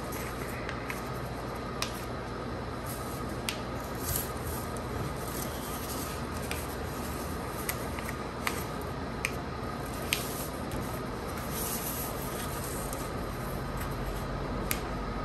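A sheet of paper being folded and creased by hand: soft rustling and rubbing with scattered sharp crinkles and clicks as the folds are pressed down, over a steady background hum.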